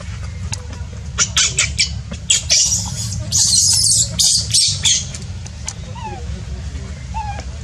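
Newborn baby macaque screaming in a run of shrill, harsh squeals, loudest a little past the middle: distress cries of a hungry infant kept from nursing. A few faint short chirps follow near the end.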